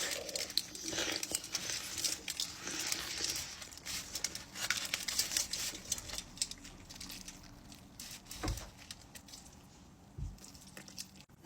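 Close-up eating sounds: a big bite of a thick carne asada burrito being chewed with a full mouth, many small clicks and crackles, busiest over the first half and thinning out later, with two soft low thumps near the end.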